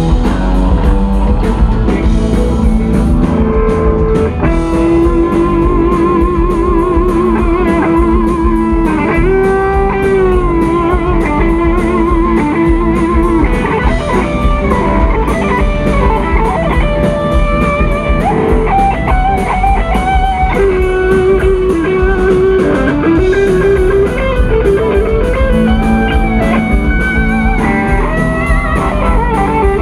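Live rock band playing loud through the amplifiers, led by an electric guitar solo. The solo has long held notes with vibrato and string bends, over bass and drum kit.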